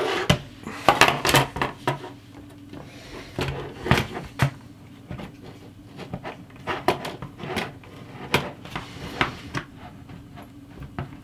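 Irregular clicks, taps and knocks of hands handling a GTX 780 reference card's metal shroud while prying at a stuck connector that won't pop loose.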